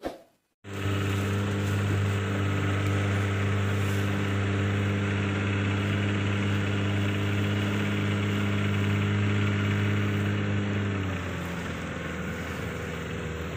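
Small boat's engine running steadily with a low, even hum, easing off about eleven seconds in. A brief chime sounds at the very start.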